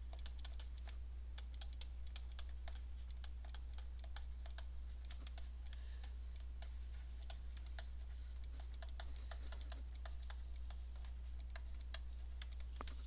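Light, irregular clicks and taps of a stylus writing by hand on a tablet, over a steady low electrical hum.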